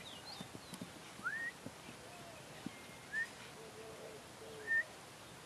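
A bird giving short rising whistled calls, three times, each lasting a fraction of a second, with a lower wavering call in between.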